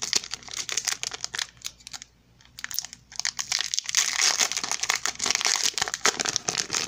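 Foil wrapper of a Pokémon booster pack crinkling and crackling as it is torn open by hand, in bursts with a short pause about two seconds in.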